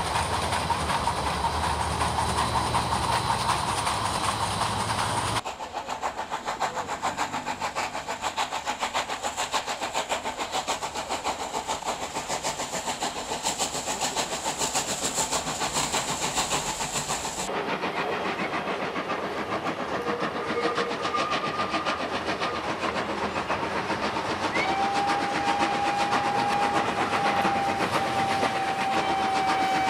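SNCF 141 R Mikado steam locomotive running under steam, its exhaust beats coming in a rapid, even rhythm. About 25 seconds in it gives a long whistle blast that drops slightly in pitch as it is held.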